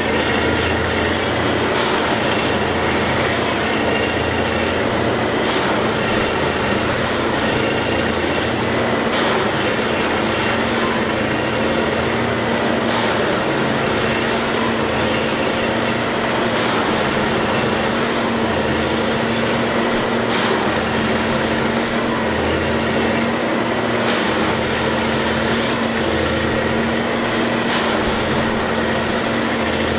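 Railway track maintenance machine running steadily with a constant engine hum, with a short sharp knock repeating at an even pace about every four seconds.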